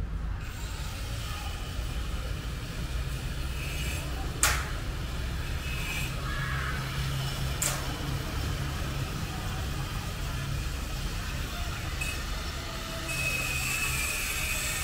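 Steady low rumble of vehicle traffic, with two sharp clicks, one about four and a half seconds in and one about seven and a half seconds in.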